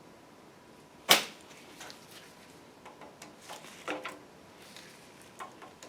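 Metal clinks and taps of valve lifters being worked out of an engine block and set down: one sharp clink about a second in, then lighter clinks, one near the middle ringing briefly.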